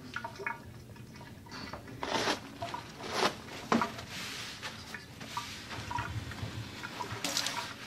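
Wet fiberglass splint material being handled and pressed into a towel to blot out the excess water: soft squishing and rustling, with a few short, louder rustles.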